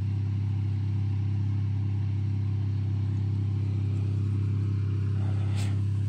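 An engine idling with a steady low drone, with a brief rustle about five and a half seconds in.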